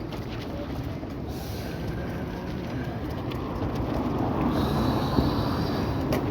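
Street ambience: a steady low rumble of traffic that grows slowly louder over the last couple of seconds, with a faint high whine joining in about four and a half seconds in.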